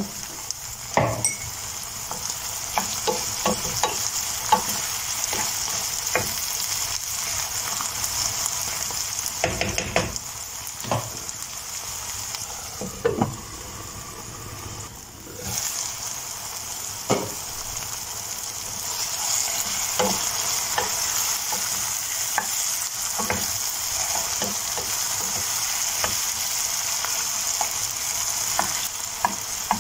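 Potatoes, onion and tomato sizzling in oil and butter in a frying pan while being stirred, a utensil knocking and scraping against the pan now and then. The sizzle dies down briefly a little past the middle, then comes back stronger.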